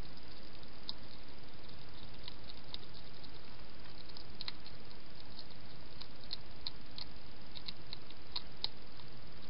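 European hedgehog feeding at a dish: a scatter of small, sharp clicks at an uneven pace, thicker in the second half, over a steady background hiss.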